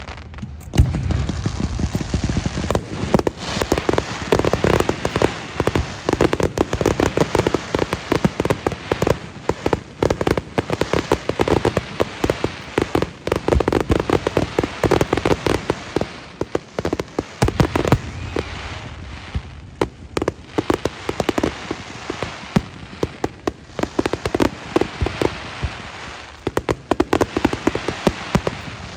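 Fireworks display: a dense, continuous barrage of rapid crackling pops and bangs, with heavier low booms about a second in.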